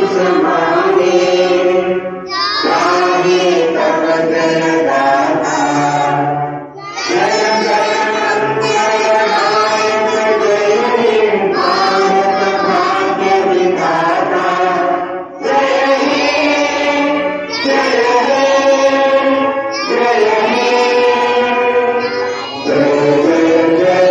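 A large group of schoolchildren singing a prayer song together, in long phrases broken by brief pauses for breath.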